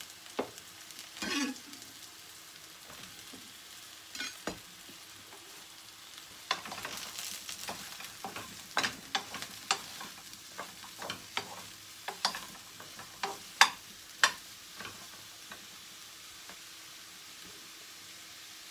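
A kitchen knife cutting mushrooms on a plastic cutting board, a few separate knocks, then a rustle and a run of sharp clicks and light clatters as cut mushroom pieces are handled and dropped into a frying pan. The loudest click comes about two-thirds of the way through.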